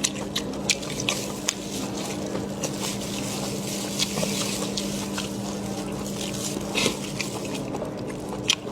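Wet mouth sounds of a person eating from a lamb shank bone: sucking and lip-smacking with many short, irregular clicks, over a steady low hum.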